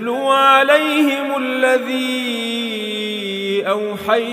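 A man's voice reciting the Quran melodically, holding one long drawn-out note whose pitch rises a little about a second in and then sinks slowly, with two brief breaks near the end.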